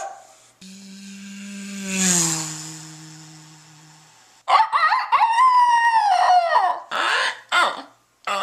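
A man's vocal sound-effect imitations: first a low hum under a swelling hiss that drops in pitch as it fades, then a loud rooster-crow imitation, one long call rising, holding and falling, followed by two short calls.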